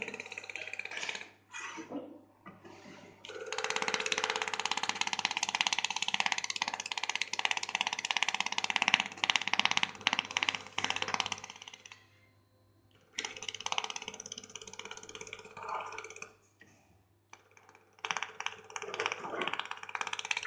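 Laser welding machine welding in three passes, several seconds each with short pauses between: a dense crackle of fast pulses with a steady hum underneath.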